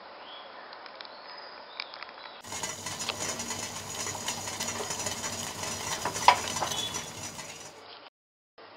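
A few faint clicks as scissors snip a coffee sachet, then a gas stove being turned on: a steady hiss of gas and flame under the pot, with small clicks and one sharp click about six seconds in. The sound cuts off abruptly shortly before the end.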